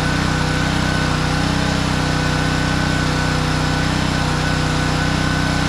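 Pressure washer's gasoline engine running steadily under load.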